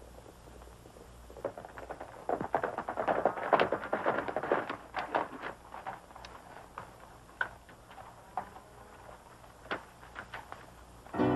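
Hoofbeats of several horses ridden up at a run and pulled to a halt, a dense clatter loudest from about two to five seconds in, then scattered single hoof clomps as the horses stand and shift. Music begins right at the end.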